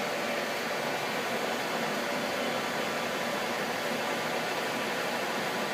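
Gisholt 3L saddle-type turret lathe running with a steady, even mechanical hum and hiss.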